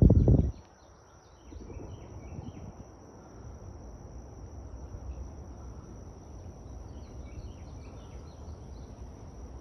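Woodland ambience: a steady high insect drone, with two brief runs of short bird chirps, one about a second and a half in and one near the end. A loud low rumble on the microphone opens it, and a fainter rumble runs underneath.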